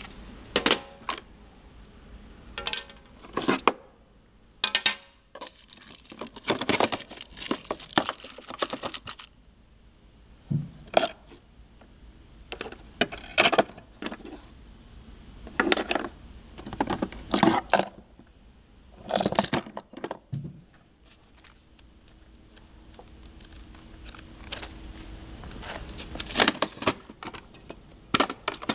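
Spanners, small metal parts and cables clinking and rattling against a hard plastic tool case as they are handled, in irregular bursts of clatter.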